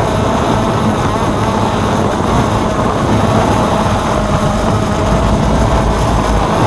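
DJI F550 hexacopter's electric motors and propellers running steadily in flight, a held multi-tone whine over rushing noise and low rumble.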